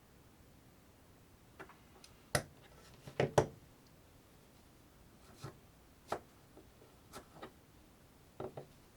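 A string of brief, light clicks and knocks at uneven intervals, like small hard objects being handled, with the loudest pair about three seconds in.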